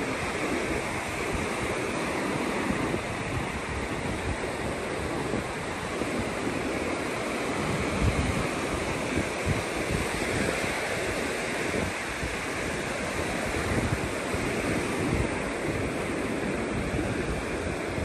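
Ocean surf washing steadily onto the beach, with wind gusting over the microphone.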